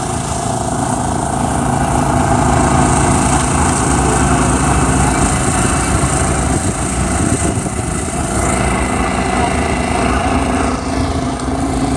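Small engine on a pontoon boat running steadily as the boat passes close, loudest about two to four seconds in and easing a little as the boat moves off.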